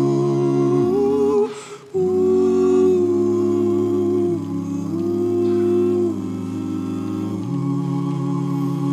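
A cappella vocal quartet of two women and two men singing sustained, slowly changing chords in close harmony, with a brief break for breath about one and a half seconds in.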